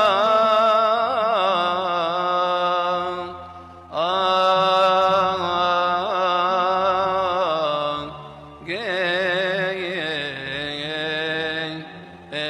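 A single voice chanting a church hymn in long, ornamented held notes, with brief breaks for breath about four and eight seconds in.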